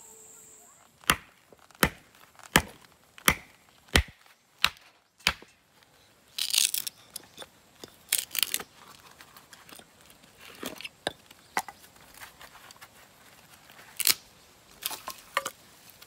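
Hatchet chopping firewood on a log chopping block: seven sharp strikes about two-thirds of a second apart, then wood cracking and tearing as pieces split off, with a few more chops near the end.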